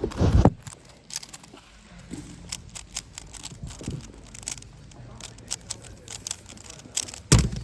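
3x3 speedcube, a Moyu Weilong GTS VII, turned quickly in a one-handed solve: a string of light, irregular clicks, with a heavy thump at the start and another near the end.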